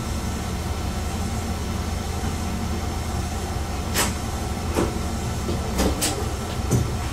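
Chizu Express HOT3500 diesel railcar running, with a steady low rumble heard from inside the car. Several sharp clicks come in the second half.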